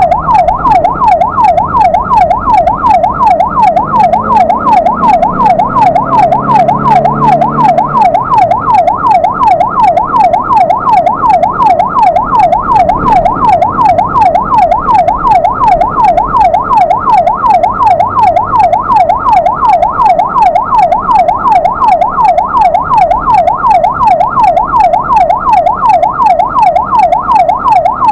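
Ambulance's electronic siren in yelp mode: a loud tone sweeping rapidly up and down, a few times a second, without a break.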